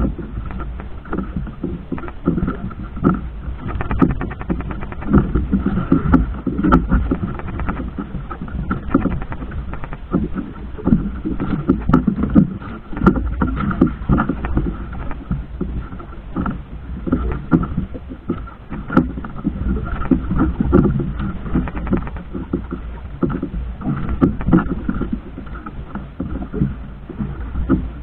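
Small fishing boat under way at sea: a motor running steadily, mixed with wind and water noise that comes and goes in uneven gusts.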